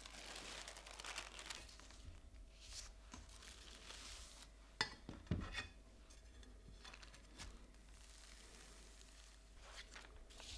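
Faint rustling and crinkling of paper being handled and smoothed down, with a few light taps or knocks about five seconds in.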